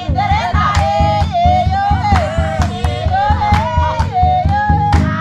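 Women singing a folk song to a fast, steady drum beat, with sharp strikes marking the rhythm.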